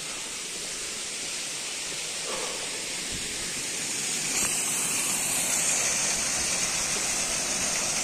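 Water of a small waterfall pouring over a rock ledge: a steady rushing hiss that grows louder about halfway through.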